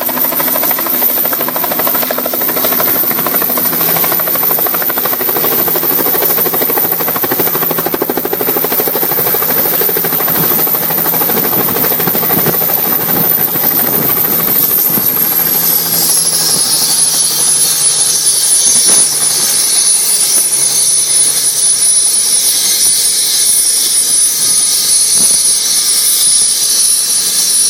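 Turbine helicopter landing: loud, steady rotor and engine noise with a high turbine whine. About halfway through the whine drops to a lower pitch and stays there, and a higher hiss sets in.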